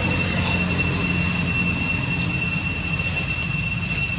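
Steady high-pitched drone of cicadas, one unbroken tone with a fainter higher one above it, over a low steady rumble.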